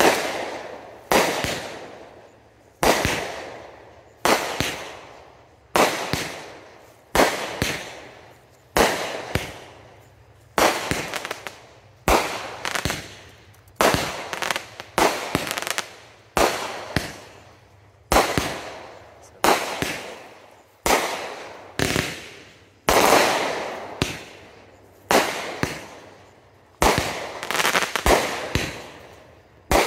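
A 66-shot consumer firework cake firing in a steady sequence, about one shot every second and a half. Each shot is a sharp bang that fades away over about a second. Some bursts are followed by crackling.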